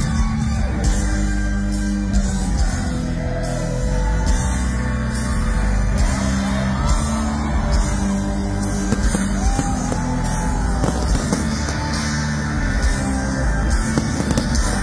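Live rock band playing a song with singing, amplified through a stadium PA and heard from the audience.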